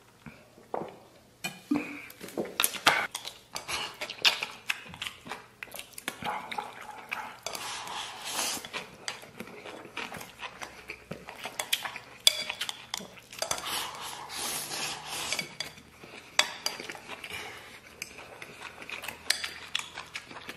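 Chopsticks clicking and scraping against a ceramic bowl as rice is stirred and shovelled up, with chewing between.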